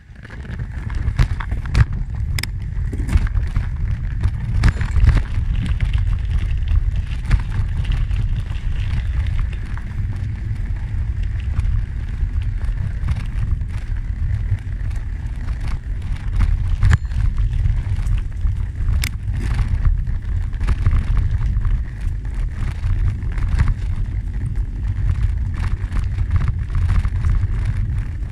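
Bicycle rolling along a gravel trail: wind buffeting the microphone as a steady low rumble, with scattered clicks and crunches from the tyres on the gravel. It gets loud suddenly at the start as the bike gets moving.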